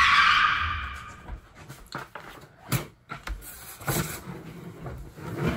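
A hiss that fades away over the first second, then scattered light knocks and shuffling of someone moving about a small room.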